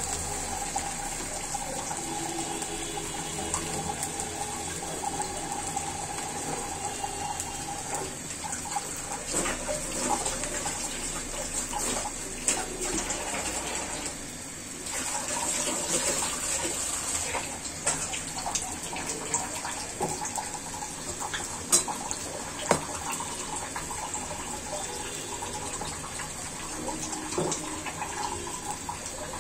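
Lentil-batter fritters (peyaju) deep-frying in hot oil: a steady sizzle with scattered crackles and pops.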